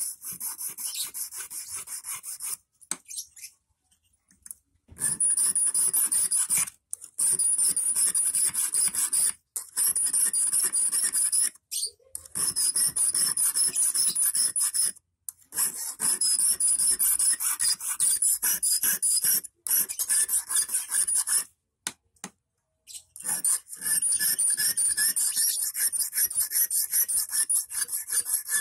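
Small hand file rasping back and forth across the tip of a 2.5 mm rust-proof wire, shaping the point of a large eel hook. Quick, even strokes in runs of a few seconds, broken by brief pauses.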